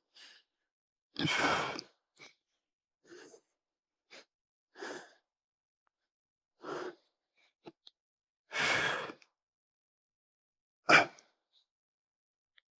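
A man's hard, effortful breathing while lifting weights: a series of forceful exhalations with quiet gaps between them. Longer, stronger breaths come about a second in and again near nine seconds, and a short, sharp one is the loudest, about eleven seconds in.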